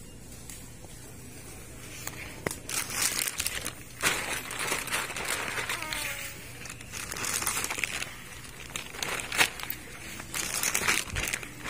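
Plastic packaging crinkling and rustling in irregular bursts, beginning about two seconds in, with a few sharp clicks among them.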